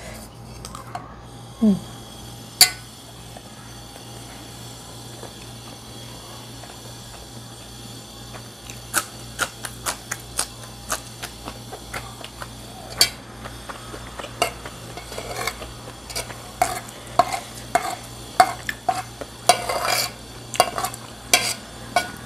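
Metal spoon clinking and scraping against a ceramic plate while fried rice is scooped up and eaten, with frequent sharp clicks from about nine seconds in. A steady low hum runs underneath.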